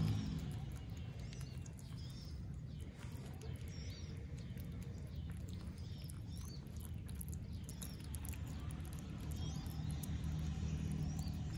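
A baby otter chewing raw catfish, with soft wet clicking as it eats. Short high chirps come and go throughout, over a steady low hum.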